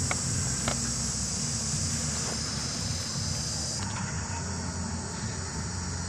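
Steady high-pitched insect chorus over a low steady rumble of wind, with two faint crackles near the start.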